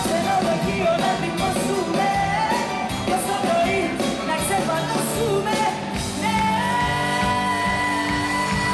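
Live Greek pop band with a female lead singer performing, drums and band under the vocal. About six seconds in, a long note is held steady to the end.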